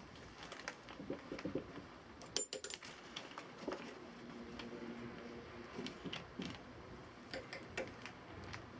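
Small irregular clicks and taps of tools and materials being handled, with a sharper metallic clatter about two and a half seconds in.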